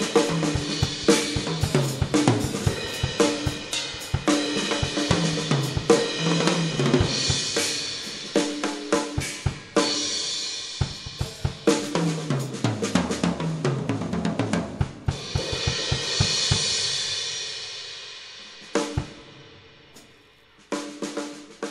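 Acoustic drum kit being played: snare and kick hits with repeated fills that step down in pitch across the toms, and crashing cymbals. Near the end a long cymbal wash fades away, followed by a short final burst of hits.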